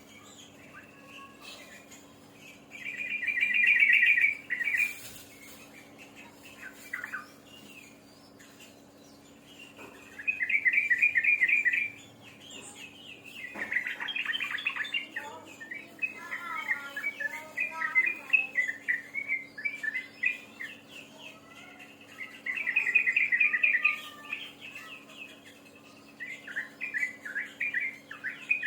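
A songbird singing in bursts. It gives a fast, even trill of about two seconds three times, with varied quick chattering phrases in between, over a faint steady low hum.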